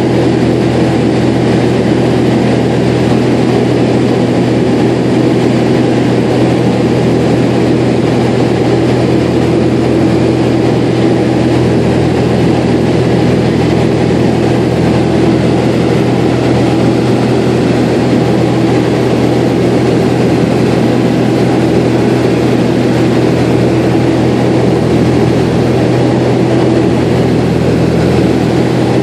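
Propeller aircraft's engine and propeller running steadily in cruise, heard from inside the cabin as a constant low drone with rushing airflow noise over it.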